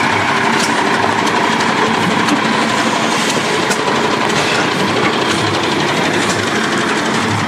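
1992 Dennis SS 237 fire truck's diesel engine running steadily as the truck drives slowly past close by, a loud even drone.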